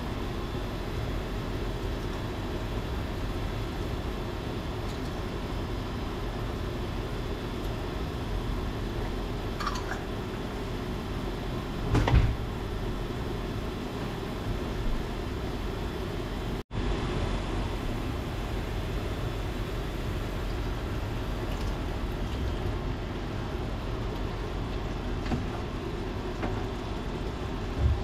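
Scampi sauce simmering in a stainless steel skillet on an induction cooktop: a steady low hiss throughout, with a single knock about twelve seconds in.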